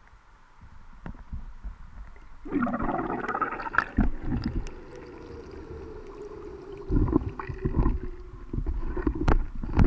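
Muffled underwater sound heard through a GoPro housing as the camera is hauled up to the surface: water rushing and knocking against the case, with a steady hum that slowly drops in pitch. Quiet for the first couple of seconds, then louder, with sharp knocks near the end as it breaks the surface.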